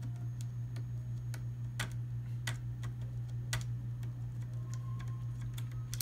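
Small irregular clicks and ticks of plastic cable connectors being worked loose by hand from a circuit board, over a steady low hum.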